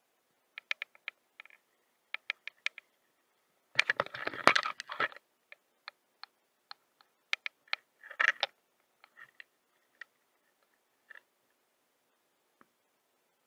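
Scattered sharp clicks and two short bursts of rustling and scraping, about four and eight seconds in, from handling a small baitcasting rod and reel and a rain jacket close to the camera.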